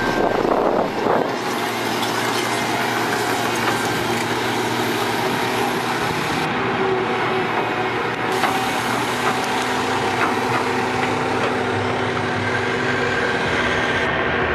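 Heavy diesel engine of construction machinery running steadily.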